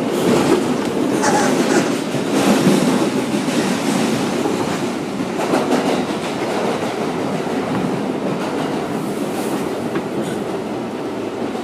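An R142A New York City subway car running along the track, heard from inside the car: a steady, loud rumble of wheels on rail, with occasional sharp clacks.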